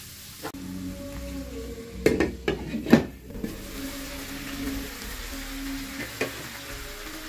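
Chicken gizzards, shallots and garlic sizzling as they fry in oil in a non-stick pan, with a few loud clatters of a utensil against the pan about two to three seconds in and one more near the end. Soft background music plays underneath.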